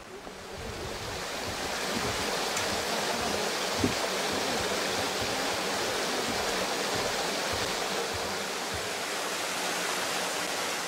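Mountain stream rushing steadily, swelling over the first couple of seconds and then holding level. A single brief knock about four seconds in.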